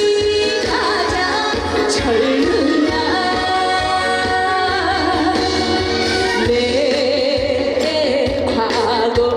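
Trot song performed live: a woman singing the melody over a backing track with a steady beat.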